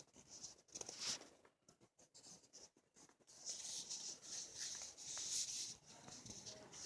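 Sleeping dog snoring faintly: soft, airy, hissing breaths, a short one about a second in and a longer one from about three and a half seconds to six.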